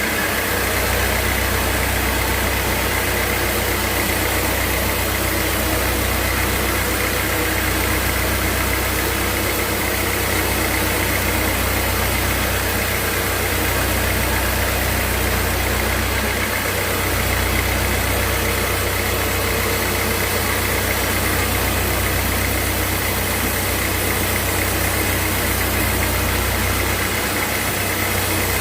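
Sawmill machinery running steadily: a constant low drone with a hiss over it.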